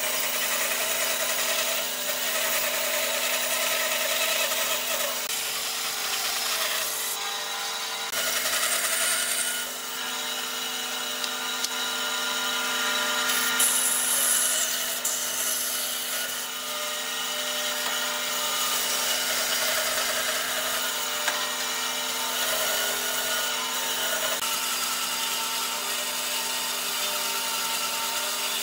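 Bandsaw running with a steady motor hum, its blade cutting lengthwise through a thick block of timber fed by hand.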